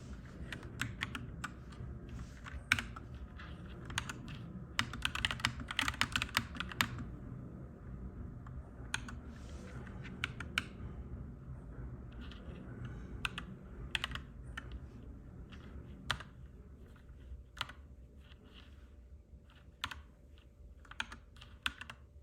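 Clacky mechanical keyboard being typed on in irregular flurries: a dense run of keystrokes about five to seven seconds in, then sparser, scattered key presses toward the end, over a steady low rumble.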